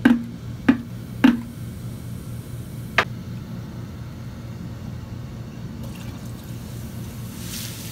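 Liquid glugging out of an upturned plastic bottle into a glass bottle for a baking soda and vinegar reaction: a few hollow glugs in the first second and a half, then a single sharp click about three seconds in, over a steady low hum.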